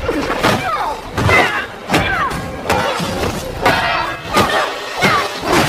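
Movie fight sound effects: a fast series of hard punches and body blows, some eight hits at roughly half-second to one-second intervals, with grunts and cries from the fighters.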